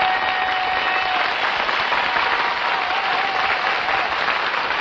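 Studio audience applauding steadily as the comedy duo are introduced.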